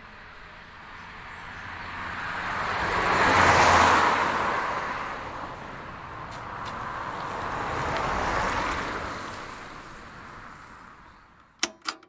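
Two cars passing by one after the other, each a whoosh of tyre and engine noise that swells and fades, the first louder. Two sharp clicks sound just before the end.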